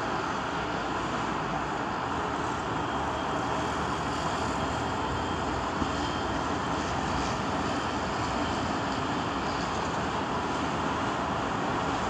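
Street ambience: a steady wash of traffic noise.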